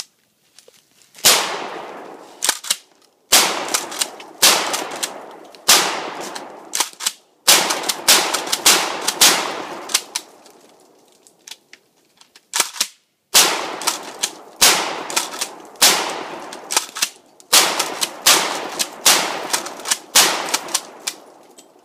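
KelTec KSG 12-gauge pump-action shotgun firing about a dozen shots, one every second or so, with a pause of about three seconds midway. Each shot is followed by a decaying echo, and the clack of the pump being worked falls between shots.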